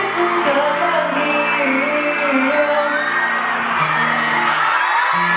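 Pop song playing loudly with a singing voice over steady bass notes, and a crowd of fans whooping and cheering over it.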